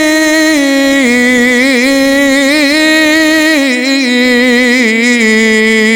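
A man's voice chants a long, unbroken melismatic vowel in the Iraqi radood lament style. The note steps down in pitch twice and wavers in trills and ornaments, then fades with an echo at the end.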